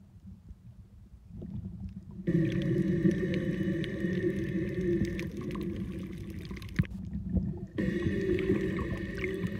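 Underwater sound picked up by a camera under the sea: a faint low rumble at first, then from about two seconds in a sudden, steady droning hum made of several steady tones over a watery hiss. The hum cuts out briefly near the end, then returns.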